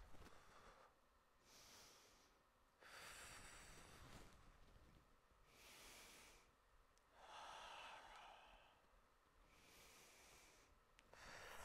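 A woman's slow, deliberate breaths in and out, faint, about six breaths each lasting roughly a second with short pauses between.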